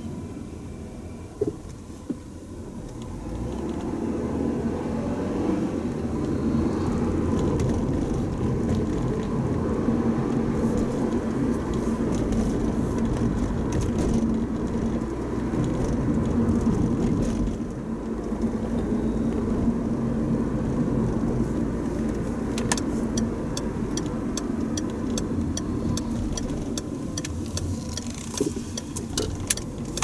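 Steady road and engine noise heard inside a moving car's cabin, growing louder about three seconds in. Over the last several seconds comes a run of quick, evenly spaced ticks.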